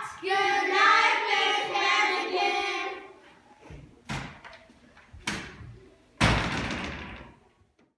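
A girl sings a held, wavering line that ends about three seconds in. Then come two short knocks and, near the end, a louder clatter fading over about a second, as a wooden door is opened and pulled shut.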